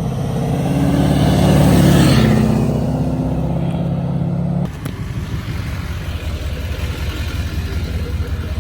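Diesel pickup truck engine running hard under acceleration, loudest about two seconds in. About halfway through it drops off abruptly to a lower, steady running sound.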